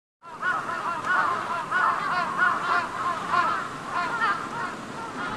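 A large flock of crows cawing, with many harsh calls overlapping without a break.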